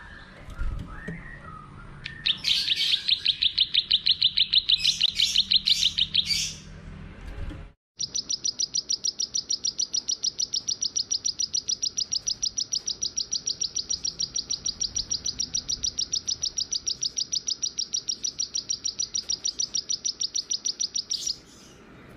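Small songbird singing in fast trills of repeated high chirps: a loud trill for a few seconds, a sudden break, then one long, even, higher trill of rapid repeated notes lasting about thirteen seconds.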